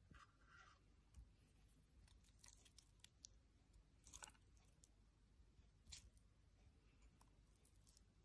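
Near silence, broken by a few faint, brief crackles and soft clicks: a metal fork pulling through and flaking a cooked salmon fillet.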